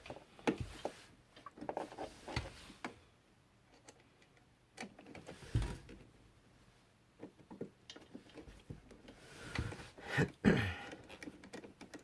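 Scattered small clicks and taps of hand work: a Phillips screwdriver turning an outlet's mounting screw, with the receptacle's strap knocking against the electrical box. A louder knock comes near the end.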